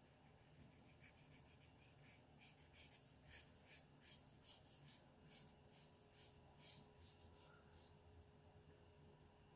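Faint brush strokes on watercolor paper: a thin pointed watercolor brush flicked across the paper in a quick series of short, soft scratchy swishes, densest in the middle stretch, about two to three a second.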